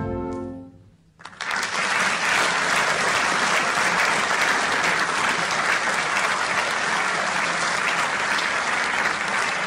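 A military concert band's final brass chord dies away, and after a brief hush audience applause breaks out and carries on steadily.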